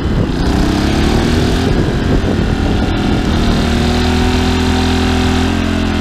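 Dirty Hand Tools 800-watt inverter generator's small engine speeding up over about two seconds as it takes the load of a hair dryer plugged into it, then running steady under that load.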